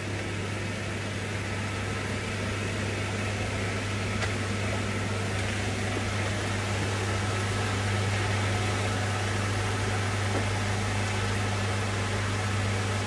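A small electric motor running with a steady low hum and a hiss over it.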